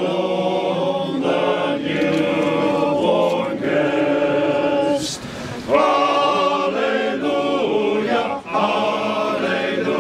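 A group of voices singing a Christmas carol together in harmony, the lines held long and broken by short breaths between phrases, about halfway through and again near the end.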